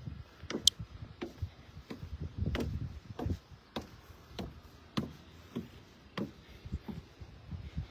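Footsteps climbing wooden deck stairs: a steady series of knocks, a little under two a second.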